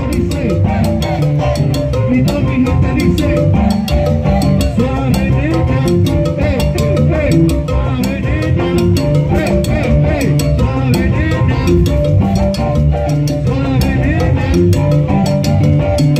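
Live salsa band playing: congas and hand percussion keep a fast, steady rhythm under keyboard chords, with a singer's voice over the top.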